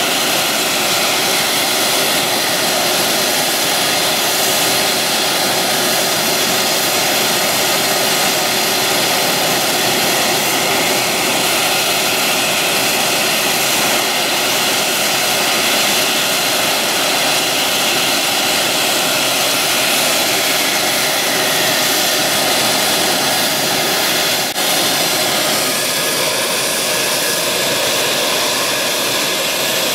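Military jet engines running at ground idle: a steady, loud whine over a broad rushing noise. There is a brief dip about three-quarters of the way through, and a whine rises near the end.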